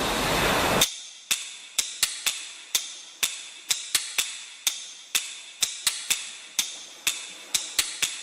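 A steady rushing noise cuts off suddenly just under a second in. It gives way to a long run of sharp clicks or knocks, about three a second and slightly uneven, each dying away quickly.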